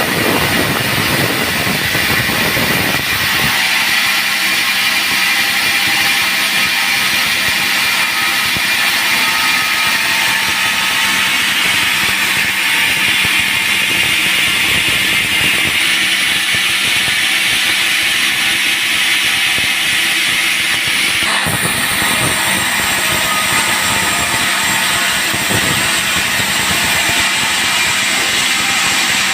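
Band sawmill running and cutting through dried teak: a loud, steady, high-pitched saw noise that does not break.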